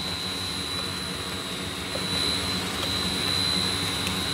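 Corn-chip dough sheeting and cutting machine running steadily: a continuous mechanical hum with a constant high whine, a little louder from about two seconds in.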